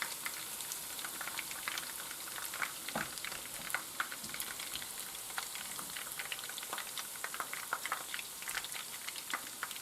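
Meatballs sizzling in hot vegetable oil in a frying pan: a steady hiss with frequent small crackles and pops.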